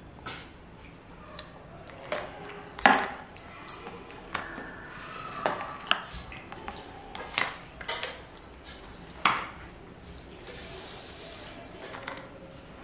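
Sharp irregular knocks and clinks of a plastic hand air pump being banged against a plate and a spoon, the loudest about three seconds in, with a short hiss of air near the end as the pump handle is pushed.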